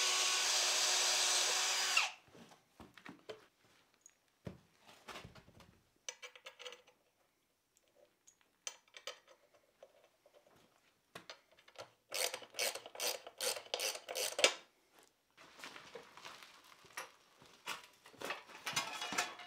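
A cordless drill runs steadily, boring through the iron band of a wooden stand, and stops about two seconds in. Faint handling clicks follow. Later comes a quick run of about ten sharp taps, about four a second, and scattered knocks and clatter near the end.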